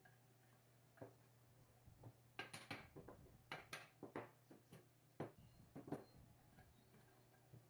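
Faint, irregular light clicks and knocks, bunched in two clusters in the middle, over a low steady hum.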